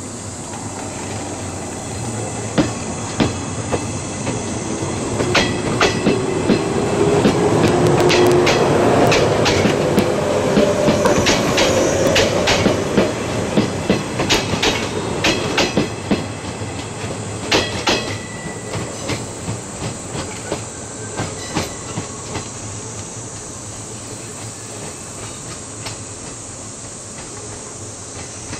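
Yellow JR West 115 series local electric train rolling slowly past during shunting, its wheels clacking over rail joints and points in irregular clusters. The noise swells to its loudest a little before halfway, with a tone under it, then fades as the train moves away.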